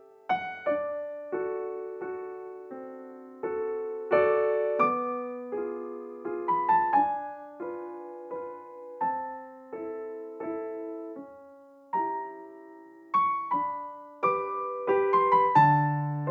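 Background piano music: slow single notes and chords, each struck and left to fade, with a quicker run of notes near the end.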